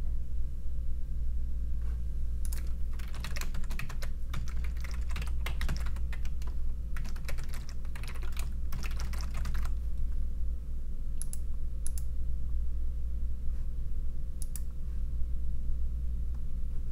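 Typing on a computer keyboard: quick runs of keystrokes for about seven seconds, then a few single clicks, over a steady low hum.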